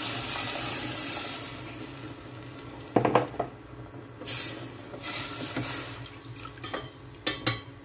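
Water pouring from a measuring jug into a stainless steel pot of curry, tapering off about two seconds in. Then knocks, and a metal ladle stirring and clinking against the side of the pot.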